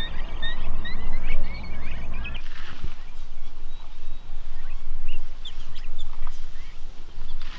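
A flock of guineafowl calling with quick, repeated chirping notes over a low rumble. About two and a half seconds in, the sound changes abruptly: the rumble drops and only scattered faint chirps remain.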